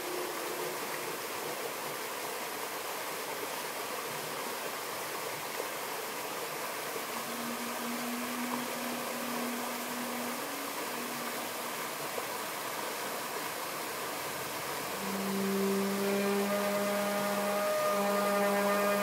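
Stream water rushing over rocks, with a saxophone holding long, steady low notes: a faint held note about midway, then a louder, sustained low note with overtones from about three-quarters of the way through.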